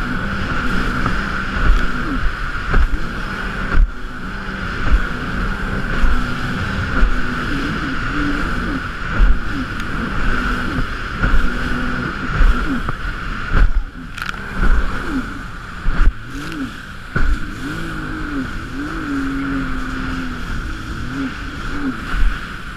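Jet ski engine running hard and revving up and down repeatedly over choppy water, with the hull slapping the waves in sharp thumps every second or two and a steady high whine throughout.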